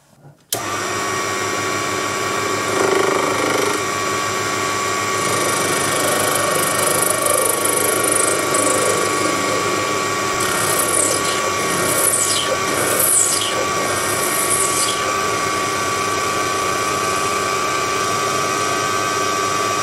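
Proxxon PD 250/e mini lathe running with a steady motor whine while a carbide-insert tool faces the end of a brass bar, the cut adding a hiss. It starts abruptly about half a second in, and a few high sounds slide downward in pitch around the middle.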